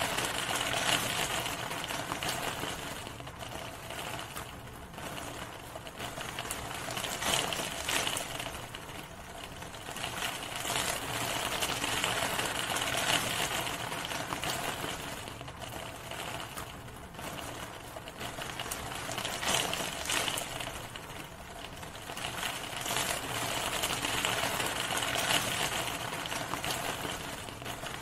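Steady rain: a dense patter of drops that swells and eases every few seconds.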